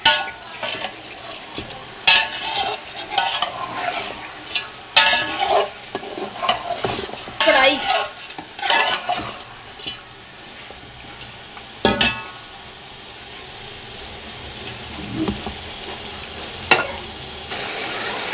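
Chicken pieces frying in ghee in a steel pot, stirred with a slotted metal spatula: the spatula scrapes and clinks against the pot over a steady sizzle. The scraping strokes come thick in the first half, then the sizzle carries on with a few sharp knocks of the spatula.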